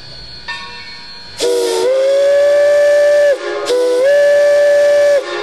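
Steam locomotive whistle sounding two long blasts, each a chord of several tones that slides up slightly as it opens and then holds steady. Two long blasts is the railroad signal to release brakes and proceed.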